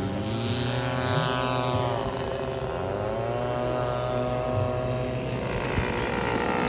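Several radio-controlled scale model airplanes flying at once, their propeller engines sounding together, with engine notes dipping and rising in pitch as planes pass and change throttle.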